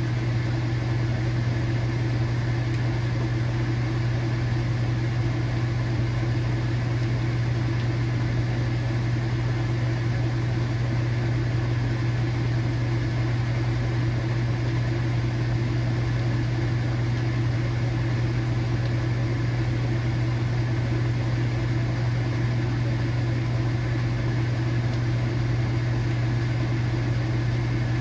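KitchenAid washing machine running, a steady motor hum that holds even without pauses or changes.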